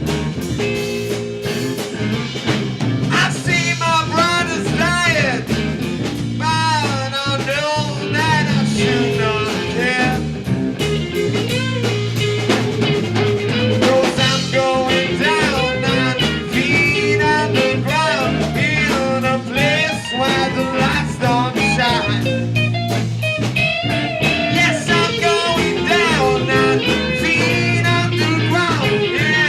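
Rock song played by a band with guitar and drums: a melody line that bends up and down over steady low bass notes and a regular beat.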